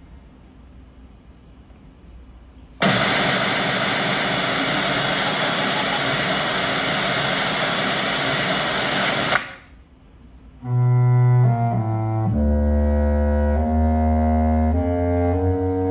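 Show soundtrack: faint music, then about three seconds in a loud, even noise that cuts off suddenly after about six and a half seconds. A second later low bowed strings, double bass and cello, begin a slow melody in stepped notes.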